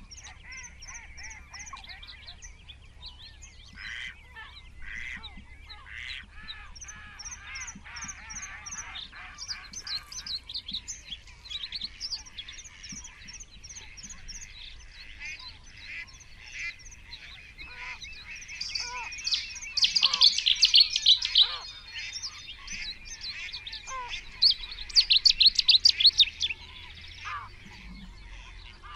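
Wetland birdsong: small birds singing and chirping with quick repeated high notes, broken by two loud bursts of rapid song about 20 and 25 seconds in, with waterfowl calling.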